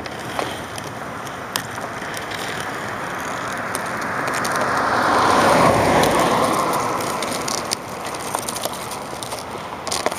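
A passing vehicle's road noise swells to a peak about halfway through and then fades away. A few sharp taps of hockey sticks and ball on the asphalt sound over it.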